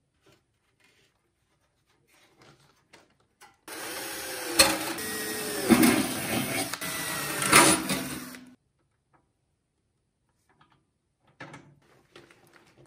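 Cordless drill with a 4 mm bit drilling into a thin stainless steel food container. The motor whine rises and falls in pitch as the bit bites, with a few sharp knocks, and stops abruptly; faint light handling noises follow near the end.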